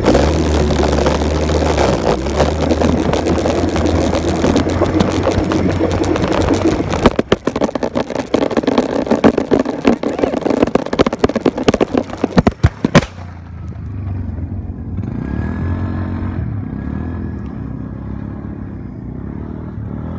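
Quad bike engine running hard with heavy wind noise, then a run of sharp knocks and clatter from a rough fall, which cuts off suddenly partway through. After that an engine note is heard, quieter, rising and falling.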